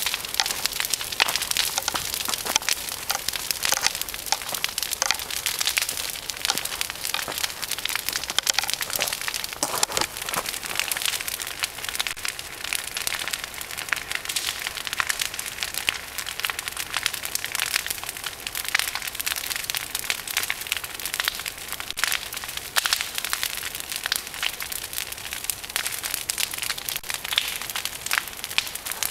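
A large brush-pile fire of storm-felled tree branches burning, crackling steadily with a dense patter of small pops and snaps.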